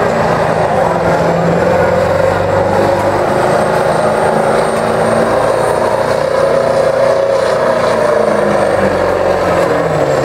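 Diesel engine of a 1990s Ford F-series street-diesel pickup running at full throttle under heavy load as it drags a pulling sled, a loud steady drone with a faint high whistle over it in the middle.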